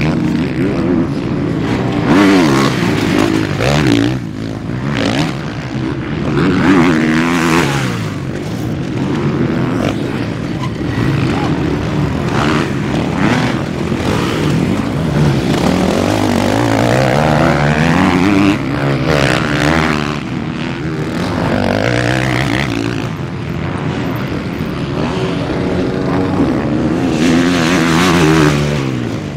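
Motocross dirt bikes racing past one after another, their engines revving up and down in pitch as the riders open and close the throttle through corners and jumps.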